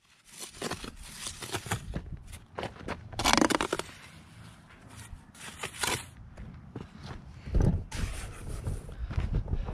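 A steel trowel scraping and working wet mortar on the top of a stone wall in short, uneven strokes, with one longer, louder scrape about three seconds in. Near the end come footsteps on rubble and the camera being handled.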